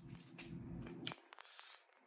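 Person eating seafood boil: quiet chewing with wet, squishy mouth sounds and a few small clicks, then a short hissy smack about a second and a half in.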